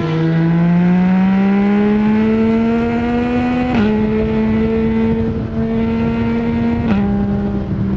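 Yamaha MT-09 three-cylinder engine through an Akrapovic full-system exhaust with no dB killer, pulling under gentle acceleration with its note rising steadily, then shifting up twice with the quickshifter, about three seconds apart. Each shift is a sudden drop in revs marked by a short sharp crack.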